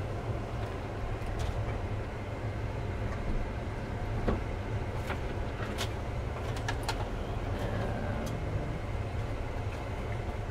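Isuzu NPS truck's diesel engine droning steadily, heard from inside the cab while it crawls along a narrow bush track, with a few short sharp clicks and knocks scattered through.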